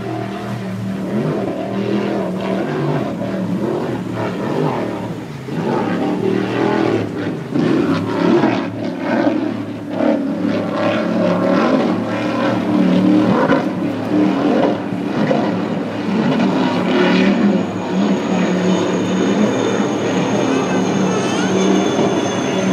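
Racing speedboat engines running steadily at speed, with a rough rushing noise over them and a thin high whine coming in during the last third.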